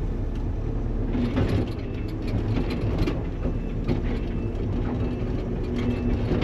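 Engine of a log-handling machine running steadily under load while logs are moved, with a few brief scraping or knocking sounds over it.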